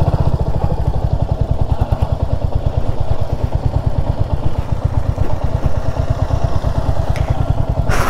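Royal Enfield Hunter 350's single-cylinder engine running at low speed in a steady, even beat as the motorcycle rides slowly over a rough dirt track.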